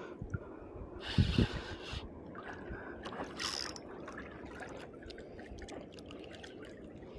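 Faint water lapping and splashing against a kayak hull, with two short splashes about a second in and midway through, and light clicks from a spinning reel being cranked in the second half.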